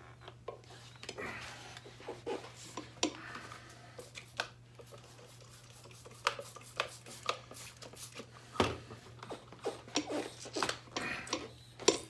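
Irregular clicks, knocks and light metallic clinks of steel tire irons working against a motorcycle wheel rim during a tire change. There is a louder knock about two-thirds of the way through and another at the very end.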